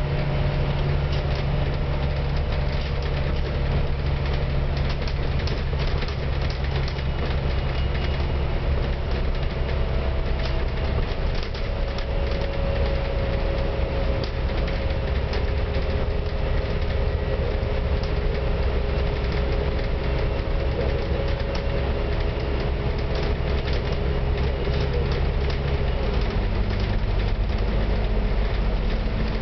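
Scania K310UD double-decker bus running at highway speed, heard from on board: a steady engine drone with a faint whine and light clicks and rattles. The engine note shifts near the end.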